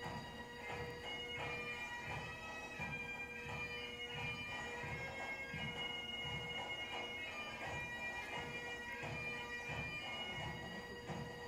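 Bagpipe music playing, with a steady drone under the melody and a regular low beat.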